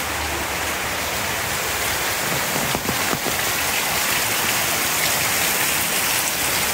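Heavy rain pouring steadily onto garden foliage and a flooded paved lane.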